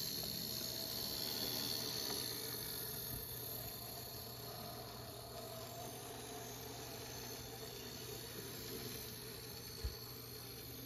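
Z-scale model train running on its track: the tiny motor of the Märklin BR 05 streamlined locomotive model whirring with a thin high-pitched whine over a faint hiss, slowly fading as the train moves away. One short soft bump near the end.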